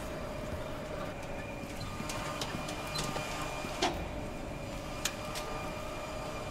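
Steady mechanical hum of a large assembly hall with a faint held tone, broken by a few sharp clicks and knocks, the loudest about four seconds in.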